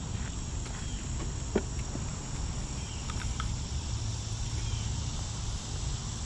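A steady, high-pitched chorus of summer insects in the woods, with footsteps on a dirt trail and a single sharp tap about one and a half seconds in.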